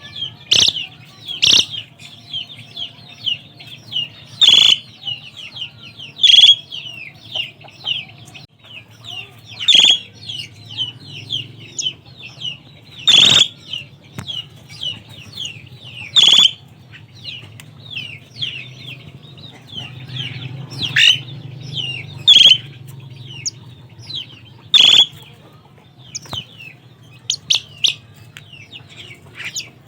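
Asian pied starling (jalak suren) calling and chattering: a dense run of quick squeaky whistled notes, broken every few seconds by a loud, sharp call. A faint low hum sits underneath.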